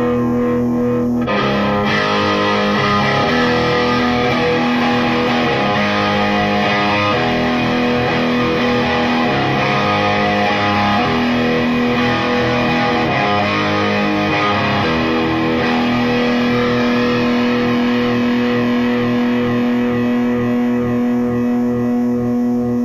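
Electric guitar played through a BOSS Katana Artist MkII amp on a distorted, effects-laden tone, picked out as a run of changing notes and chords, then one chord held and left ringing from about two-thirds of the way through. It is recorded through a phone.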